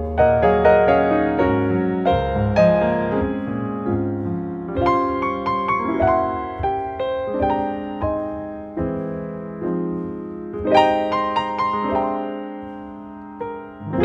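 Background piano music: a gentle piece of struck notes that ring and fade, with a few quicker runs of notes.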